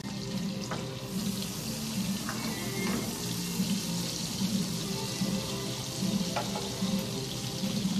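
Oil and butter sizzling in a hot frying pan, a steady hiss that grows louder about a second in, with a few light clicks. Background music with low repeating notes plays underneath.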